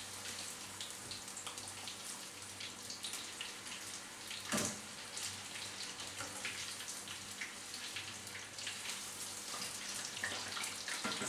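Vietnamese spring rolls (nem) deep-frying in a pan of hot oil: a steady sizzle with many small crackles and pops, and one sharper click about four and a half seconds in.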